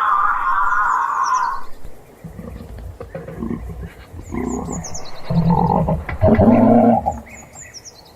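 Giraffe making low, rough humming and snore-like sounds from about two seconds in to about seven seconds, loudest near the end. It opens with a louder, higher wavering sound that stops after about a second and a half. Birds chirp faintly in the background.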